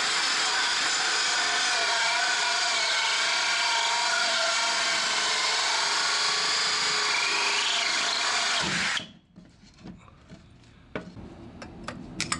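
Kobalt 24 V XTR cordless drill, set to speed 2, boring a large, dull hole saw into wood: a steady motor whine with a rasping cut that stops abruptly about nine seconds in. A few light clicks and knocks follow.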